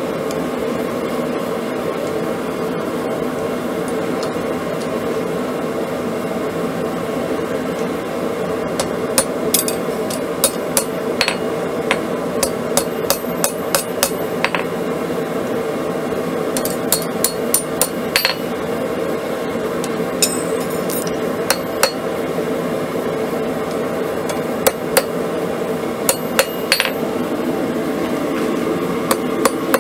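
Hand hammer striking a hot quarter-inch round steel bar on a steel block anvil: sharp metallic blows in irregular clusters, beginning after several seconds, over a steady rushing hum.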